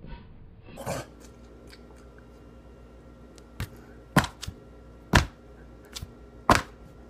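Hands slapping during vigorous signing: a run of sharp slaps in the second half, three loud ones with lighter taps between, irregularly spaced.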